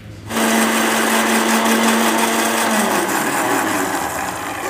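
Electric blender (juicer-machine jar) switching on and running steadily as it whips egg whites with sugar. Its motor hum dips slightly in pitch partway through.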